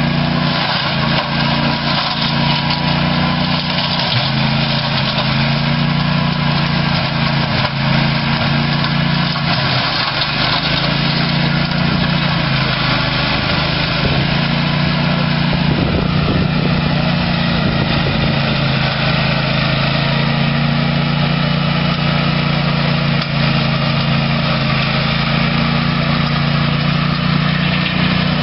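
The 21 hp engine of a Gravely Rapid E series two-wheeled tractor running steadily while driving a Rapid Mulcher brush cutter. The engine note sags briefly about ten seconds in, and there are a few knocks just past the halfway point.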